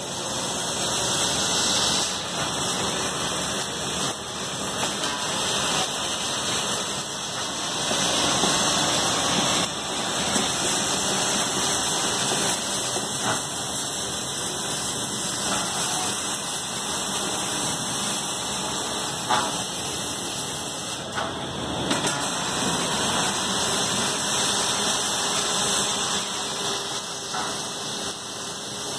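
Robotic MIG welding line for four-wheeler chassis at work: steady, loud machine noise with a dense hiss and a few faint clicks.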